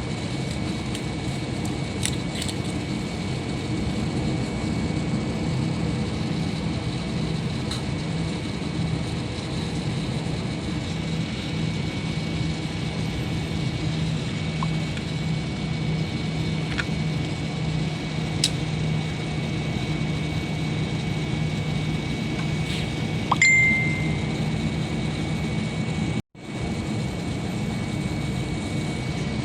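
Steady cabin noise of an airliner in flight: jet engine and airflow rumble with a low hum. About 23 seconds in there is a short, high ding. A few seconds later the sound cuts out for a moment and comes back.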